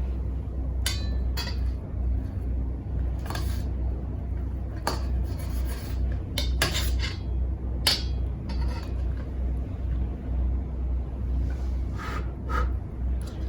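Metal utensils clinking and scraping against an aluminium mess tin: a string of separate, irregularly spaced clinks, over a steady low hum.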